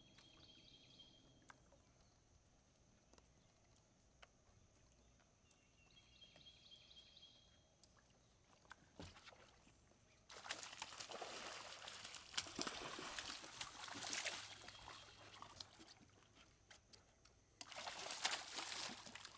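Water splashing and sloshing in two loud stretches, the first starting suddenly about ten seconds in and the second near the end. Before that it is near quiet, with a short high bird call heard twice.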